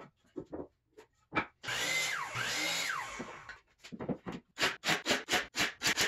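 Cordless drill running for about two seconds, its motor speeding up and slowing twice, drilling a pilot hole in melamine particle board. Light clicks of boards being handled come before it, and a quick run of knocks, about four a second, follows near the end.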